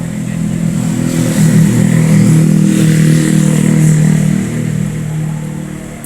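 A motor vehicle's engine passing close by, growing louder to a peak in the middle and then fading away.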